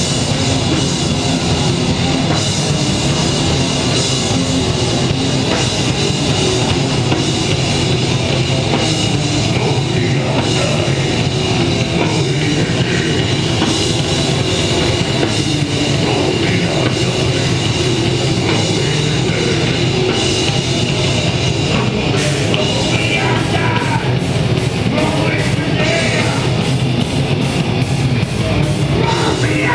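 Live rock band playing loud heavy, punk-edged rock: electric guitars over a drum kit. In the last third the drums settle into an even, fast cymbal beat.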